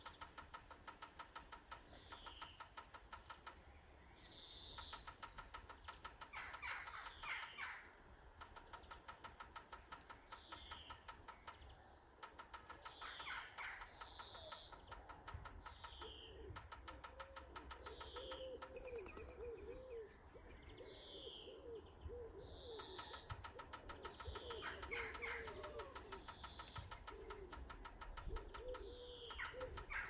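Garden birds calling: short high notes that slide down, repeated every second or two, with bouts of a fast, rattling trill. From about halfway in, a run of low cooing notes joins them.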